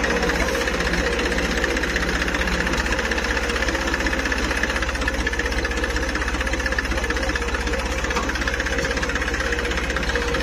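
Diesel tractor engines running steadily as one tractor tows a Swaraj 744 stuck in mud out on a tow rope.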